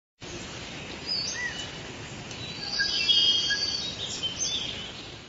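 Nature ambience: birds chirping and calling over a steady background hiss, with short high chirps scattered throughout and a cluster of held calls about three seconds in.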